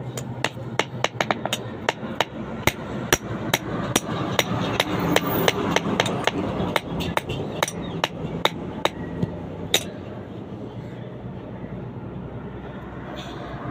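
Blacksmith's hammer striking metal in fast, uneven blows, about three a second, that stop about ten seconds in.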